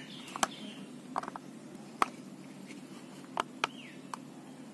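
Clear plastic housing of a homemade chaff cutter being handled and fitted over the blade: scattered plastic clicks and knocks, the loudest about two seconds in, over a steady low hum.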